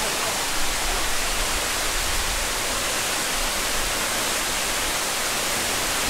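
Leke Leke Waterfall pouring: a steady, dense rush of falling water.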